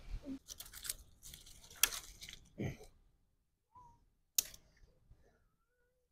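A few sharp clicks and short crackling rustles, irregular and spaced by quiet gaps, with the loudest click a little over four seconds in.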